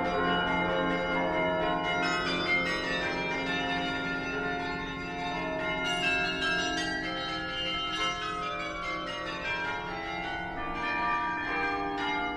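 The bronze bells of the Mafra Palace carillon playing a melody. Many notes overlap and ring on as new ones are struck.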